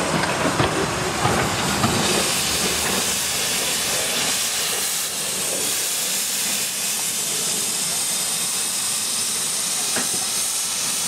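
Saddle-tank steam locomotive Slough Estates No. 3 standing with steam hissing steadily from it. A few knocks and clanks from the locomotive come in the first couple of seconds.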